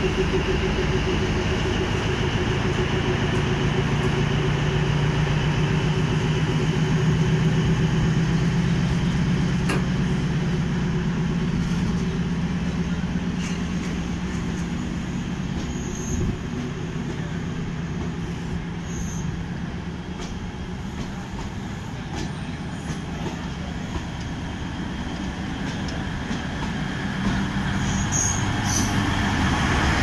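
Diesel-electric multiple unit (DEMU) coaches rolling past along the platform: a steady rumble of wheels on rail with a low diesel engine hum. It eases off through the middle and grows louder near the end as the rear power car draws level.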